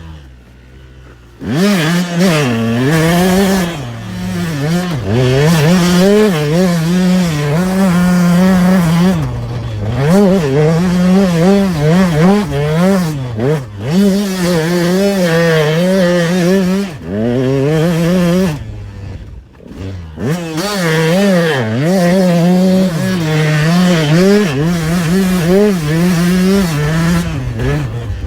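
KTM 200 SX two-stroke motocross engine under hard throttle, its pitch rising and falling over and over as the rider opens and chops the throttle through a run of whoops. It starts low and quiet, picks up sharply about a second and a half in, and drops off briefly several times.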